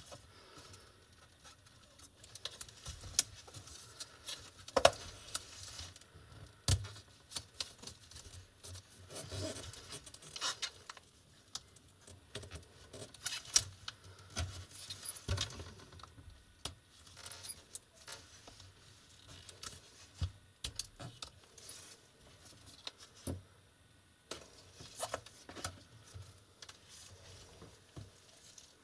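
Small handling noises of hands working on a laptop screen's display connector: irregular clicks, taps and scratchy rustles as the tape over the 30-pin eDP connector is peeled back and the cable is unplugged, with a few sharper clicks standing out.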